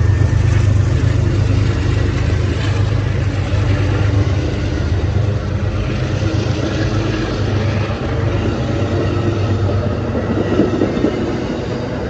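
Amtrak passenger train departing: a steady, heavy rumble of the diesel locomotive and rolling wheels that slowly grows quieter as the train pulls away.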